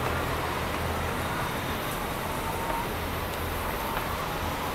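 Steady low mechanical hum and rushing noise of a hen house's running machinery and ventilation fans.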